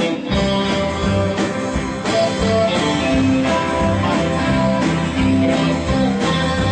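A pop-rock band playing live: electric guitars, bass and drums over a steady beat.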